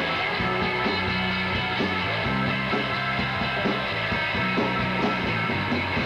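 Live rock band playing loud and steady: electric guitars, bass and drums in an instrumental passage with a regular beat.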